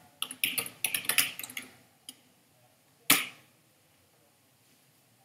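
Typing on a computer keyboard: a quick run of keystrokes, then a single louder keystroke about three seconds in.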